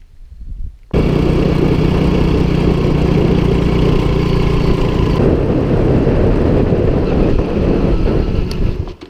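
Small motorbike engine running steadily under way, mixed with wind rush. It comes in suddenly about a second in, shifts slightly a bit past halfway, and cuts off just before the end.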